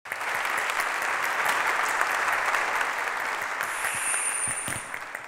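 A large audience applauding, a dense patter of many hands clapping that thins out and fades over the last second or so.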